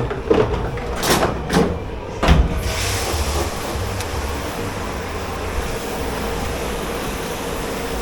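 Dish-pit clatter: four or five sharp knocks in the first couple of seconds, then a steady machine hum with a held mid-pitched tone.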